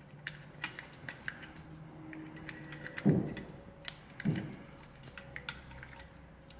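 Scattered light clicks and taps of small wiring work, with wires being fitted to the terminals of a Fibaro dimmer module. A person's voice makes two brief falling hums about three and four seconds in.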